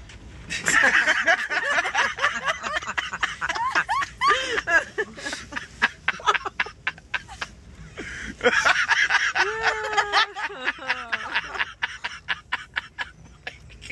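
People laughing and snickering in two long bouts, with rapid breathy laugh pulses; the second bout starts about halfway through.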